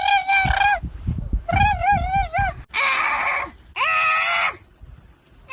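Saxophone playing a string of long, wavering honk-like phrases to call birds: four calls, the last one swooping up in pitch.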